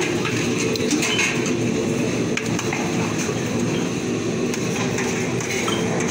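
A steady low rumble of background machinery or traffic, with a few sharp clinks of steel ladles and spoons against a large steel cooking pot and plates.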